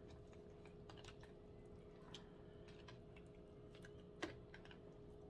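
Near silence with faint scattered clicks and ticks, one slightly louder about four seconds in, as a whiting fillet is worked by hand in a plastic bowl of egg wash.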